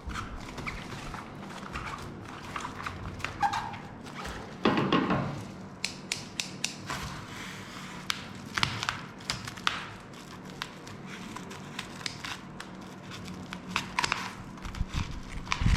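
Xiaomi POCO M3 phone box and packaging being handled: scattered taps, clicks and crinkles, with a longer, louder scrape about five seconds in.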